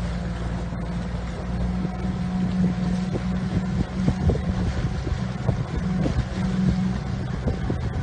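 Small boat's outboard motor running steadily at speed, with rushing water and wind on the microphone. Irregular short thumps come through the hull noise.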